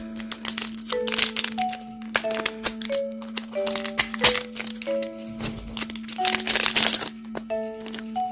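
Foil booster-pack wrapper crinkling and crackling as it is handled and torn open, loudest about six to seven seconds in. Soft background music of short, separate notes plays underneath.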